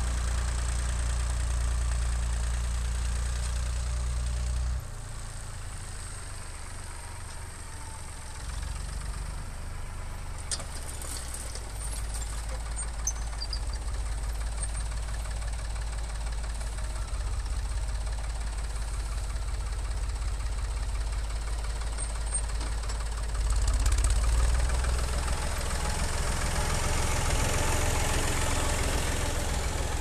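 David Brown 780 tractor's diesel engine running while it works a front-loader bale squeeze. It drops in level about five seconds in, then grows louder and is loudest about three-quarters of the way through, as the tractor comes close.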